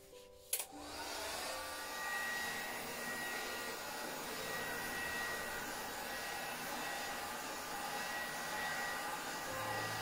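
Hand-held hot-air blower switched on with a click about half a second in, then running steadily: a rush of air with a steady high whine, blowing wet acrylic paint across a canvas.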